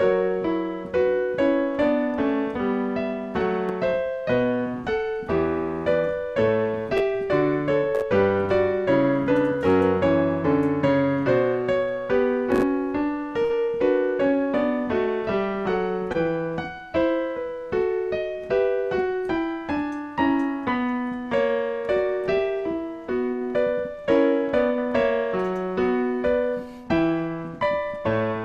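Solo piano music: a flowing run of notes with bass notes beneath, each note striking and fading away.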